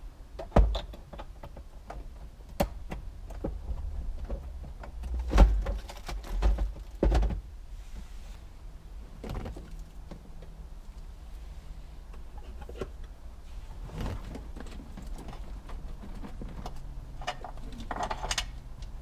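Hands working car wiring harness connectors and plastic dash parts: scattered clicks and knocks, with a few louder thumps in the first seven seconds, then lighter handling and rustling.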